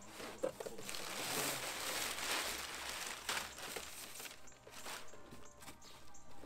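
Crumpled packing paper rustling and crinkling as it is pulled out of a cardboard shipping box, with scattered light knocks and clicks of the cardboard. The rustling is densest in the first four seconds, then thins to occasional clicks.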